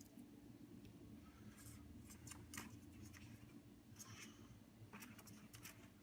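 Faint clicks and scrapes from handling a T.J. Harrington & Son Gat spring air pistol, a few short clusters spread through, over a low room hum.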